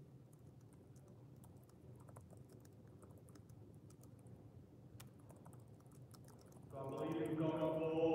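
Faint, scattered clicks and taps over a steady low hum. About seven seconds in, a man's voice starts speaking louder.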